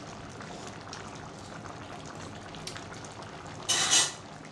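A pan of thick kaldereta stew simmering on a gas stove: a steady low bubbling and hiss. Near the end comes a single short, loud burst of hissing noise.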